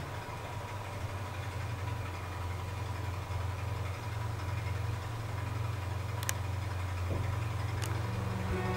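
Cat purring, a steady low rumble, with a couple of faint clicks about six and eight seconds in.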